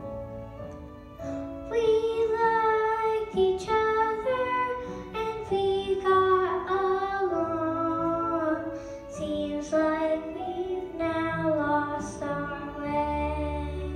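A child singing a solo melody through a microphone over instrumental accompaniment.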